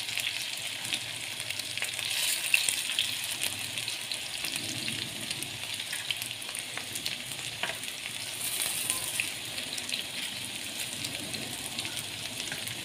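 Minced-meat kebabs shallow-frying in oil on a hot tawa: a steady sizzle with small crackles and pops. In the first half, steel tongs move over the pan, turning the kebabs.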